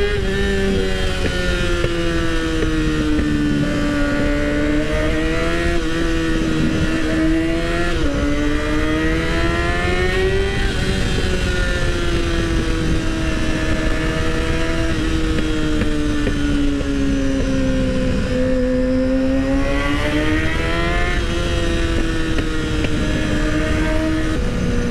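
2012 Kawasaki ZX-6R's inline-four engine running as the bike is ridden, its pitch rising and falling with the throttle several times.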